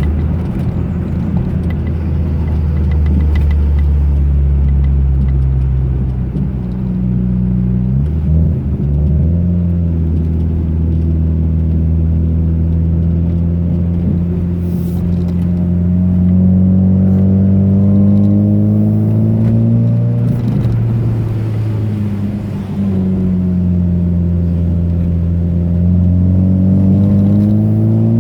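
Car engine running on the road, its pitch climbing steadily as it pulls, then dropping sharply about 8 and 20 seconds in as gears change, with a dip and another climb near the end.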